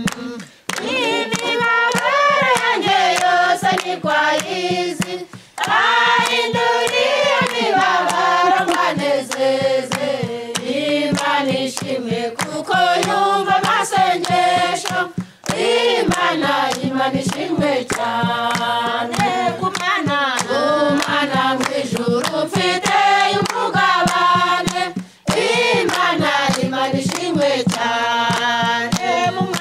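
A group of women singing a Kinyarwanda praise hymn without instruments, clapping their hands in a steady beat. The singing breaks off briefly between verses a few times.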